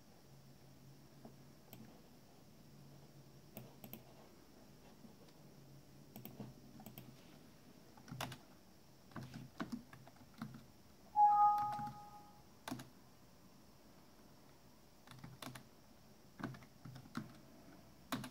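Computer keyboard typing in short bursts of key clicks, with a brief two-note electronic beep about two-thirds of the way through, which is the loudest sound.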